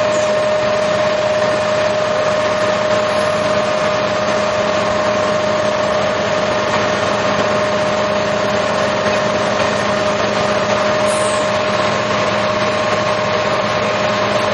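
Fire engine's engine and water pump running steadily, a constant whine over a rushing hiss of water jets.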